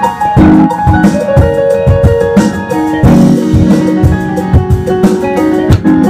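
Music: a keyboard played with held chords and note runs over a steady drum beat.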